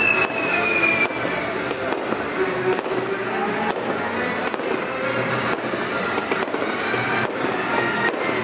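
A fireworks display: shells bursting with repeated bangs and crackling, over music.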